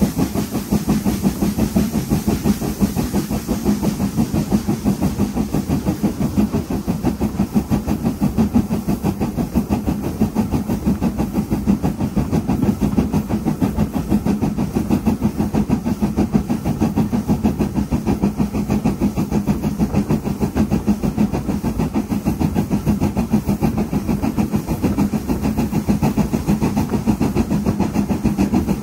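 Stanier Black 5 steam locomotive 44806, a two-cylinder 4-6-0, working a train, its exhaust beats coming in a steady, quick rhythm of several chuffs a second.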